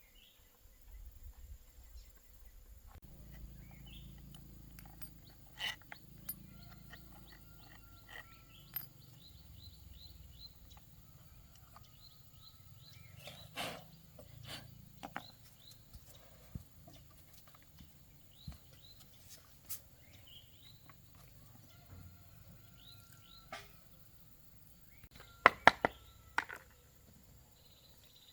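Birds chirping in short repeated calls, with scattered clicks and a quick run of loud, sharp knocks near the end.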